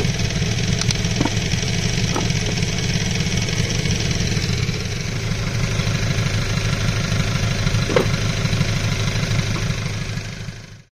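An engine running steadily, with a few light knocks, likely metal engine parts being handled. The sound cuts off abruptly near the end.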